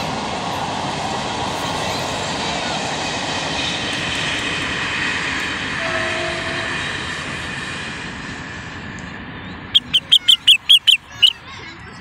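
A steady rushing noise with several faint, drawn-out high tones, slowly fading over the first two-thirds. Near the end, a common bulbul gives a quick, loud run of about eight sharp notes.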